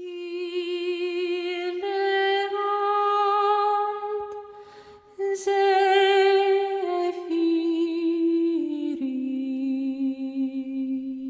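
Solo wordless voice, humming or singing a slow melody in long held notes with vibrato. It breaks off briefly about four seconds in, then comes back and steps down through several lower notes.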